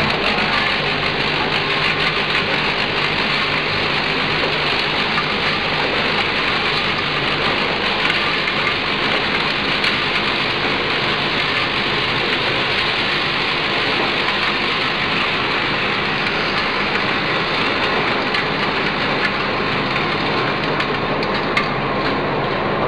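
Snack packing line running: a steady, rain-like rattle of puffed snacks on a vibratory feeder and dropping into the buckets of a Z-type bucket elevator, over a steady machine hum.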